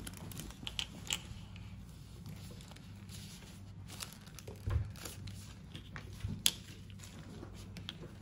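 Scattered small clicks, taps and light rustling of plastic dolls and toy pieces being handled, over a steady low hum. There is a duller knock about halfway through and a sharp click a little later.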